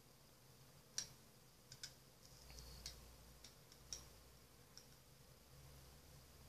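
Faint, scattered light clicks and taps of small plastic vials and a clear plastic tub being handled, about seven in the first five seconds.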